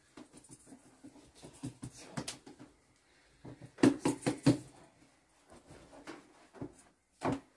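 Hands patting and slapping a thin round of flatbread dough spread over a cloth-covered bread cushion, with soft taps and cloth rustles and a quick run of louder slaps a little past halfway.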